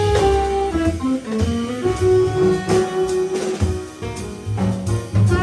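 Small jazz band playing live: saxophone, electric guitar, piano, upright bass and drums, with a moving melodic line over a walking bass and drum hits.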